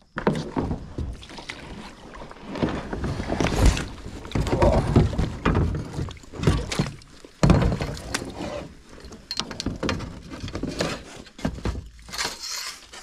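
A kayak being paddled: irregular paddle strokes splash and swish through the water, with a sharp knock now and then.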